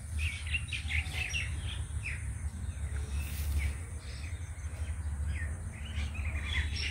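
Several small birds chirping, many short high calls overlapping through the whole stretch, over a low steady rumble.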